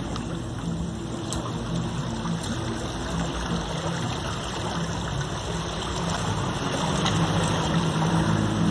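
Sea water washing and rushing over shoreline rocks, steady and a little louder near the end, with a low steady hum underneath.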